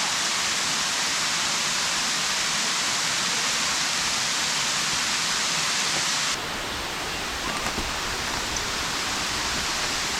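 Steady rushing of a waterfall and creek water. About six seconds in it changes abruptly to a slightly quieter, duller rush with more low rumble.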